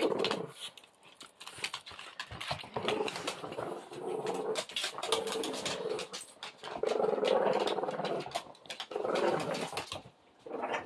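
A Presa Canario puppy and a Boston Terrier play-fighting: repeated growls, each about a second long, amid scuffling and short clicks of paws on a wooden floor.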